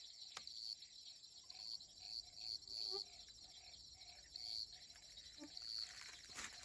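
Night insects chirping: short high chirps repeat irregularly, two or three a second, over a steady very high insect whine, with a fainter lower call repeating beneath them.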